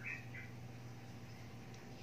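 Small bird chirping: two short high chirps in the first half second, over a steady low hum.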